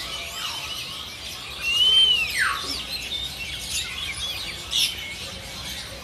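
Caged songbirds chirping and whistling, several at once. About two seconds in, one loud clear whistle arches up and then slides steeply down.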